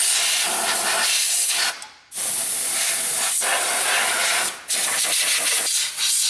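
Compressed-air blow gun blowing around the engine's timing-belt end, a loud steady hiss in long blasts. The blasts cut off abruptly for a moment about two seconds in and twice more near the end.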